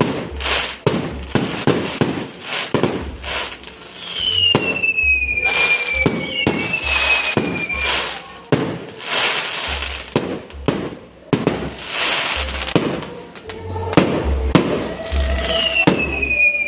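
Fireworks going off in quick succession, a dense run of sharp bangs and pops. High whistles falling in pitch cut through a few times: about four seconds in, again soon after, and near the end.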